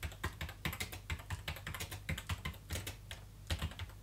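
Typing on a computer keyboard: a quick, uneven run of key clicks that stops shortly before the end.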